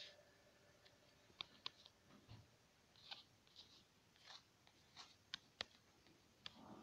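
Near silence broken by faint, scattered taps and clicks on a tablet's touchscreen while letters are drawn, about a dozen in all.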